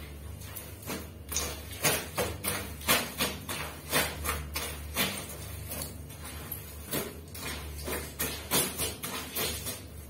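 A soaked, heavy blanket being scrubbed and pressed by hand on a tiled floor: irregular wet slaps and squelches, about two to three a second.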